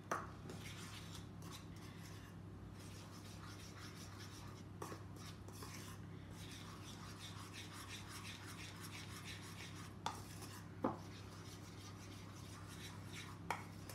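A spoon stirring and scraping round a small bowl as icing sugar and water are mixed into a stiff icing, with a few light clinks of the spoon on the bowl. A steady low hum runs underneath.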